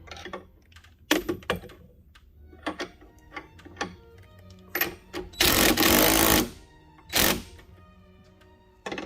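A power driver runs in one loud burst of about a second and then once more briefly, tightening the bolts that clamp the closet-rod arms to their brackets. Short clicks and knocks of metal hardware being handled come before and after.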